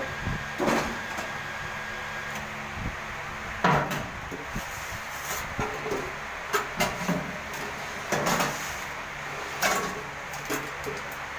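Square metal oil tins knocking and clanking as they are moved and set under a cap-sealing machine: about six sharp knocks over a steady low machine hum.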